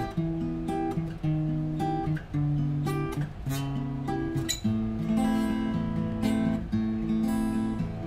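Ibanez AE900NT acoustic guitar (solid Sitka spruce top, rosewood back and sides) played in standard tuning, plucked chords and single notes ringing out. The playing grows into fuller strummed chords from about halfway.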